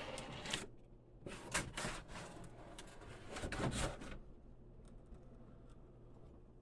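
Packing tape being opened on a large cardboard box: a few rasping strokes over the first four seconds, then faint handling of the cardboard.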